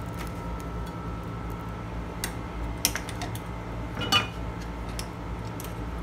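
A few light clinks and knocks of a nonstick frying pan and kitchen utensils being handled on a glass cooktop, the loudest about four seconds in, over a steady low hum.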